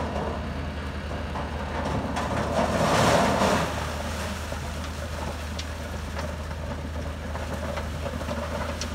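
Yanmar HS2000 sugarcane harvester's engine running steadily under load, with a louder noisy swell about three seconds in and scattered crackles.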